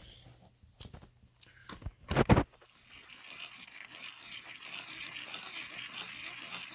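A few handling clicks and a sharp knock, then from about three seconds in a steady, hissy whirr as the hand-crank generator is turned, building slightly.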